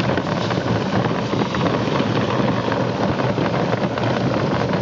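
Hoover Spin Sweep push sweeper being pushed over pavement: wheels rolling and spinning brushes giving a steady, dense rattle.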